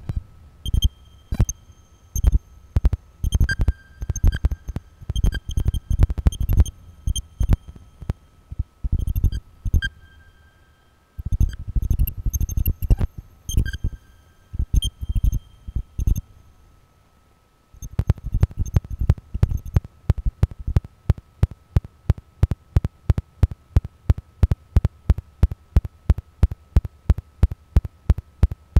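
Real-time generative electronic sound, computed from a Mandelbox fractal algorithm without samples or conventional synthesis: rapid low thuds and clicks in irregular clusters, with short high pings over a faint steady high tone. Just past the middle it drops out for about a second and a half, then returns as an even pulse of thuds, about four or five a second.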